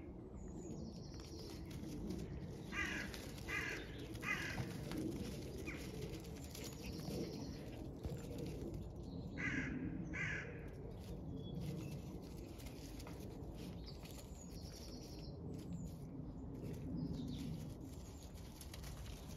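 Crows cawing: three harsh caws in quick succession, then two more about five seconds later.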